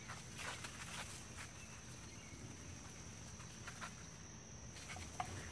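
Faint outdoor ambience: a steady high-pitched insect drone like crickets, with a few soft rustles and clicks.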